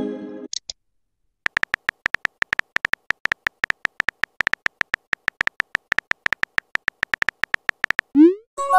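Texting app keyboard typing sound effect: a quick run of short, slightly beeping clicks, about six a second, as a message is typed out. A chime fades out at the start, and near the end a short rising swoop and a new chime sound as the message is sent.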